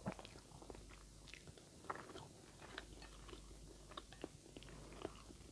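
Faint chewing and mouth sounds of a person eating instant noodles, with scattered soft smacks and clicks at irregular intervals.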